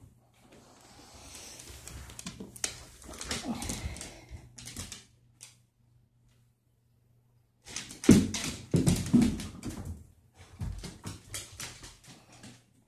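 A dog scrabbling on a hardwood floor as he plays with a ball, his claws clicking and skittering. About eight seconds in, after a short lull, comes a rapid run of loud knocks and clicks.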